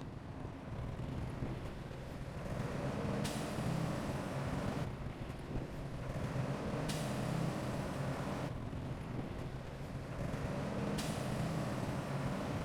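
Diesel engine of heavy earthmoving equipment running steadily. Over it, a loud rush of noise swells three times, about every four seconds, each time beginning with a sharp click.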